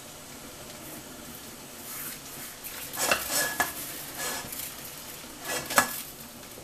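Pastry brush painting a thin chickpea-flour batter onto a hot stainless-steel pan set over a pot of boiling water: a few short scrubbing brush strokes in the second half, with a light sizzle and a faint ring from the metal pan, over the steady hiss of the boiling water below.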